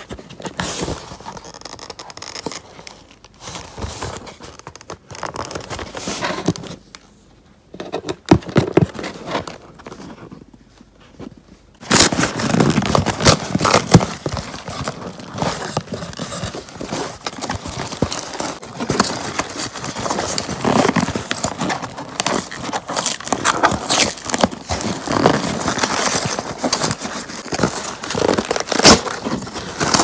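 Cardboard delivery box being torn open by hand: ripping cardboard and tape, with crinkling, rustling packaging. Scattered, quieter rustles at first, then much louder, continuous tearing and crackling from about twelve seconds in.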